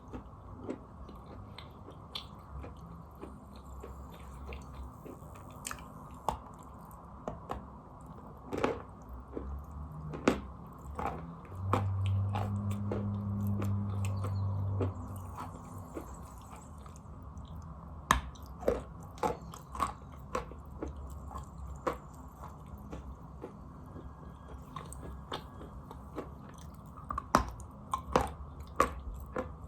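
Close-up biting and chewing of chalk: a string of crisp, irregular crunching clicks, thickest near the end. About twelve seconds in there is a low steady hum lasting about three seconds.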